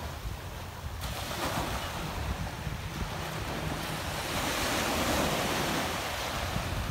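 Small ocean waves breaking and washing up the beach, with wind buffeting the microphone. The surf swells to its loudest about four to five seconds in as a wave breaks.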